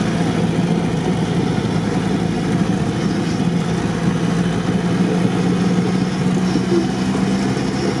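Engine of a modified UAZ off-roader running steadily while it drives, with a constant hum and road noise; the pitch edges slightly higher about halfway through.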